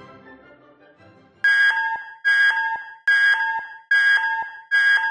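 Music fades out, then about a second and a half in an electronic fire alarm signal starts sounding a repeating two-note pattern, a high tone dropping to a lower one and fading, a little more than once a second.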